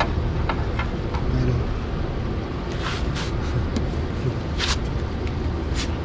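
A few short hisses of aerosol lubricant sprayed through a straw at an air-conditioner compressor's mounting, with scattered clicks of hand tools. A steady low rumble runs underneath.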